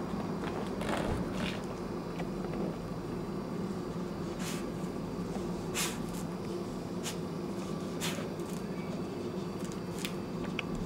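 Steady low background hum of outdoor garden ambience, with about eight small sharp clicks and ticks scattered irregularly through it.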